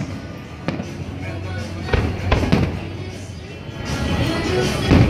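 Aerial fireworks bursting, a handful of sharp bangs a second or so apart with the loudest near the end, over music playing.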